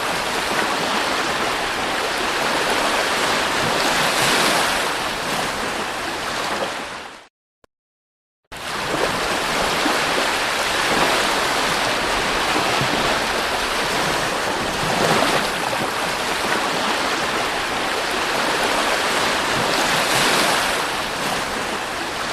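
Sea surf breaking and washing on a beach: a steady rush of wave noise that swells as each wave breaks. It cuts out to silence for about a second, some seven seconds in, then resumes.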